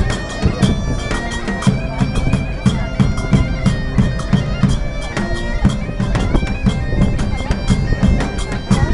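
Live medieval-style street band music: a reedy wind instrument plays a melody over a steady drone, with drums beating a fast, even rhythm.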